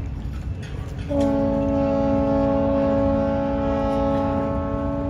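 A boat horn sounding one long, steady, multi-tone blast that starts about a second in, over a steady low background rumble.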